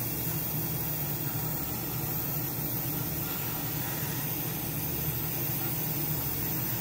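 Steady hum and hiss of a spray booth exhaust fan running, with the air hiss of a gravity-feed Gaahleri Ace airbrush spraying solvent-based white base coat at about 25 psi.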